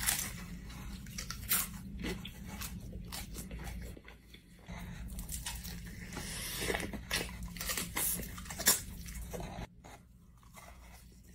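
Biting into and chewing Jollibee spicy fried chicken: repeated sharp crunches of the crispy coating with wet chewing between them.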